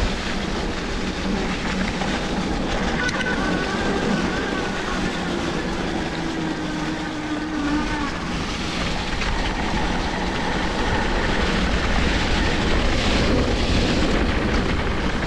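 Steady riding noise of an electric mountain bike on a dirt trail: tyres rolling, with wind rumbling on the camera microphone. A faint pitched whine comes and goes a few seconds in.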